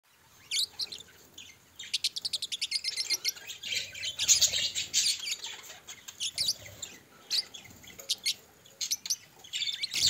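Budgerigars chirping and chattering: short sharp chirps scattered throughout, a fast run of clicky chirps about two seconds in, and a denser stretch of chatter around the middle.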